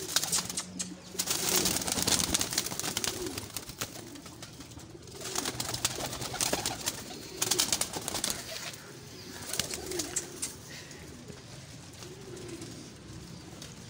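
Domestic pigeons cooing repeatedly, low rolling calls every second or two, with bursts of rustling and wing flutter as birds are handled.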